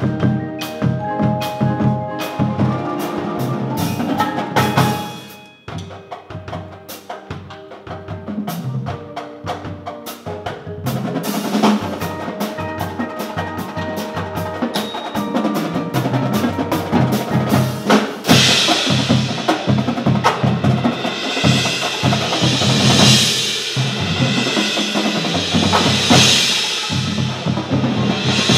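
Marching drumline and front ensemble playing together: fast, dense strokes on bass drums, tenor drums and snares over marimba and mallet-keyboard notes. The sound dips for a moment about five seconds in, and from about eighteen seconds a sustained cymbal wash comes in and swells several times.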